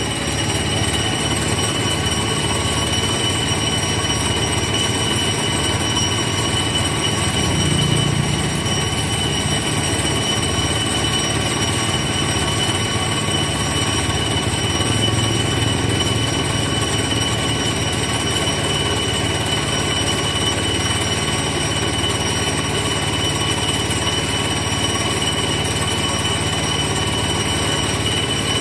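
Steady machinery running, with a constant high whine over a rumbling noise.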